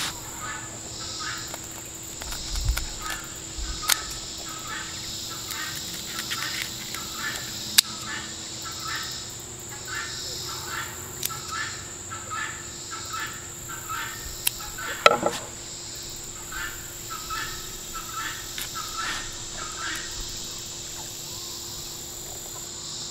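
Insects such as crickets shrilling steadily, with short bird chirps repeating about twice a second, one louder call about two-thirds of the way through, and a few sharp clicks.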